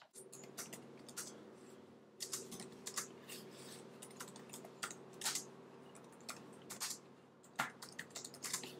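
Typing on a laptop keyboard: quick, irregular key clicks, with a steady low hum underneath.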